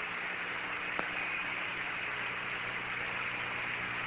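Steady hiss of the Apollo air-to-ground radio link between transmissions, with a faint low hum under it and one faint click about a second in.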